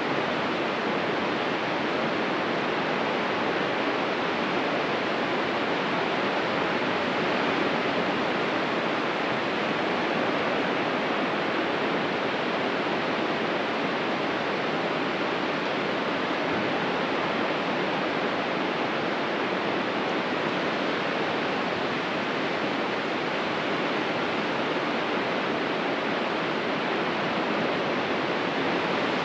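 Ocean surf giving a steady, unbroken hiss, with no single wave standing out.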